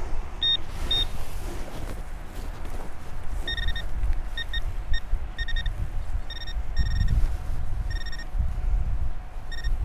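Handheld metal-detecting pinpointer beeping as it is probed through a plug of soil: two short beeps near the start, then repeated beeps at about two a second from a third of the way in, as it closes on a buried coin. A low rumble runs underneath.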